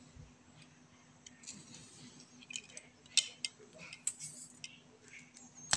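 Box cutter slicing a thin plastic bag sheet against a steel ruler, with quiet scattered clicks of the blade and ruler and brief rustling of the plastic; the sharpest click comes about three seconds in.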